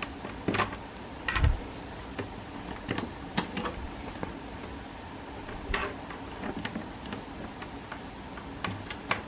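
A dozen or so short, irregular clicks and taps over a quiet background.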